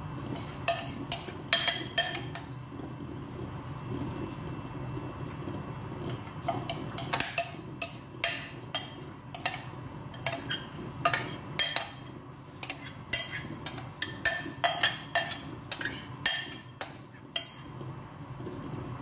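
Metal spoon clinking and scraping against a mixing bowl while the olive and tomato topping is scooped out, in short sharp strikes: a few about a second in, then about two a second from roughly six seconds in until near the end. A steady low hum runs underneath.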